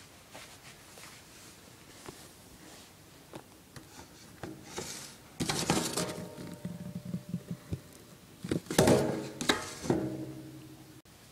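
A homemade ninja star clattering and ringing inside a cardboard box as the box is handled. It comes in two bouts, about five seconds in and again near nine seconds, each a rattle of clinks followed by a short ringing tone.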